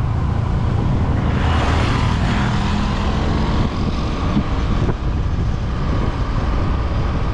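Motorcycle being ridden: a steady low engine and wind rumble, with a rush of noise swelling about a second and a half in.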